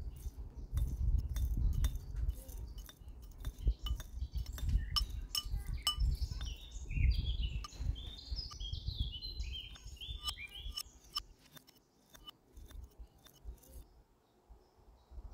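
Dry seeds, nuts and spoon tapping against a ribbed glass jar as a pan masala mix is spooned in: many quick glassy clinks and rattles with soft thumps, stopping about three-quarters through. High chirping, like a small bird, runs through the middle.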